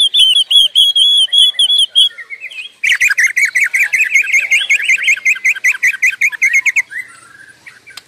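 White-rumped shama (murai batu) singing in full, unbroken song: a fast run of repeated high notes for about two seconds, then, after a short pause, a longer run of rapid lower notes for about four seconds.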